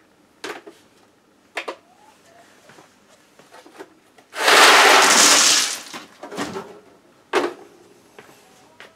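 Ice cubes tipped out of a plastic ice-maker bin and poured onto ice in a soft-sided cooler: a loud clattering rush lasting about a second and a half, a little past the middle. A few short clinks and knocks of the plastic bin come before and after it.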